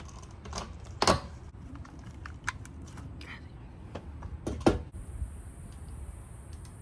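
Small clicks and knocks of screws and hinge hardware being handled, with two sharper knocks, one about a second in and one past the middle. A steady high hiss comes in about five seconds in.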